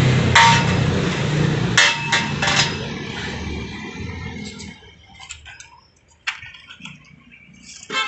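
Several sharp metallic clinks, two louder ones about half a second and two seconds in and smaller ones later. Under them a passing vehicle's engine hum fades away over the first few seconds.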